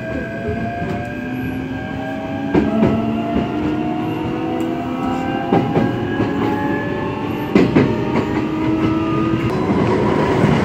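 Train in motion, heard from inside the carriage: a motor whine that rises steadily in pitch as it gathers speed, with a few sharp wheel clacks over rail joints. A louder rushing noise builds near the end.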